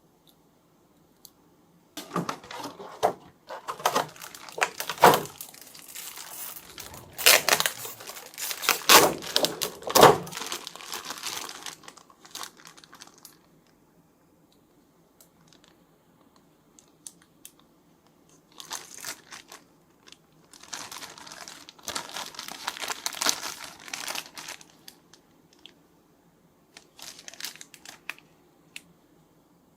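Packaging crinkling and being torn open by hand, in three stretches of rustling: a long one near the start, another about two-thirds through, and a short one near the end, with quiet pauses between.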